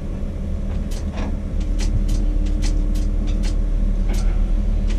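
Tower crane machinery running with a steady low rumble that grows louder about a second and a half in, with a faint hum over it and scattered sharp clicks.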